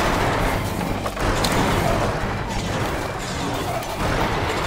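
Cartoon bulldozer's engine rumbling and its crawler tracks grinding and clattering as it strains, stuck fast between two tree trunks.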